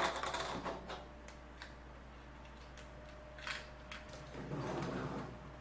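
Plastic clicks and rattles from a toy disc-shooter being handled: a rattling clatter at the start, a few sharp separate clicks, and a soft rubbing shuffle near the end.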